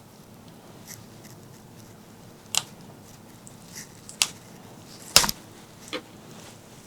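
Close-miked eating sounds: four sharp, crisp bites or snaps about a second apart, the loudest a short cluster about five seconds in, over a quiet background.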